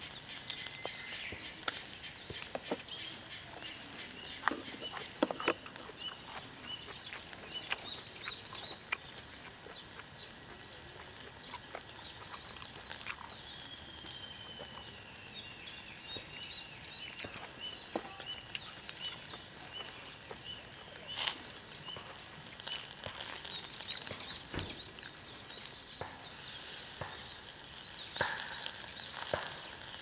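Birds singing high, repeated trills over outdoor background noise, with scattered sharp little clicks; the trilling fades out a few seconds before the end.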